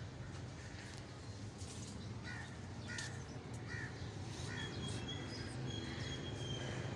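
Birds calling: a run of about five short calls a couple of seconds in, then thinner, higher calls, over a steady low rumble.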